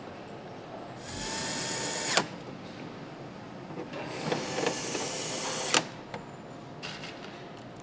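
Handheld power screwdriver driving screws into motorcycle fairing parts, running in two bursts of about one and two seconds. Each burst stops with a sharp click, and a brief third spin follows near the end.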